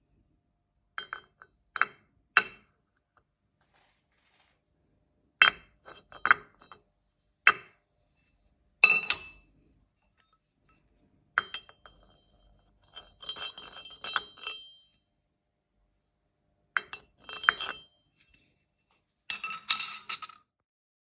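Hard metallic clinks and taps of small metal objects being handled and set down during engine work. They come in irregular clusters with silent gaps, and the last cluster near the end is the loudest.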